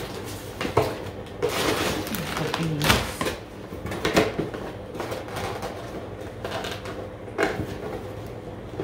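A cardboard box being opened and handled: rustling of the flaps and several sharp knocks and taps. A steady low hum runs underneath.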